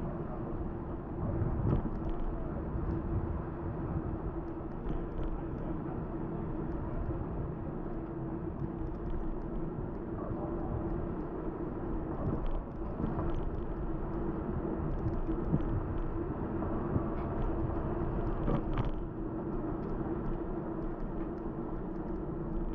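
Steady rumbling road and wind noise on a bicycle-mounted camera's microphone while riding, with a steady low hum and many faint clicks and crackles throughout, typical of a faulty or rubbing microphone.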